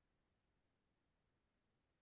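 Near silence: the call's audio is gated to digital quiet between speakers.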